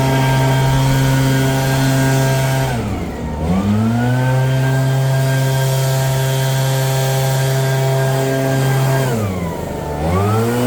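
Small petrol engine of a garden power tool running at high speed. Twice the throttle is let off and the pitch drops sharply, then it revs straight back up to full speed: once about three seconds in, and again near the end.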